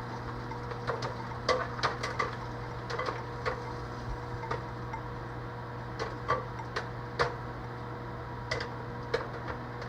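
Microwave popcorn kernels popping inside the bag, sharp irregular pops about two a second, over the steady hum of the running microwave oven.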